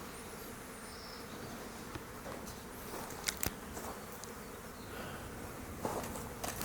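Flies buzzing steadily around, drawn by a dead kangaroo's carcass, with a few sharp clicks about halfway through and near the end.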